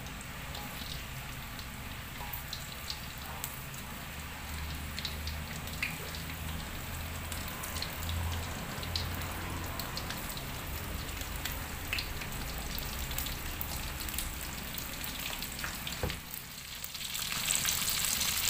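Salted fish frying in hot oil in a wok: a steady sizzle with scattered pops and crackles. It dips briefly near the end, then comes back louder.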